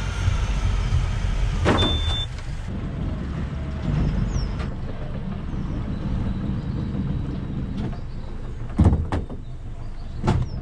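Boat engine running steadily with a low rumble, with a few sharp knocks, the loudest about nine seconds in.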